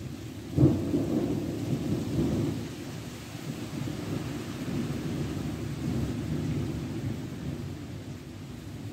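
A thunderclap breaks sharply about half a second in, then rolls on as a long, uneven low rumble that slowly dies down. Steady rain hisses underneath.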